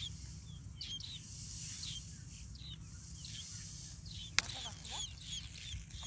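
Common tailorbird chicks begging in the nest: short, high, thin cheeps repeated about twice a second over a steady high hiss. One sharp click comes about two-thirds of the way through.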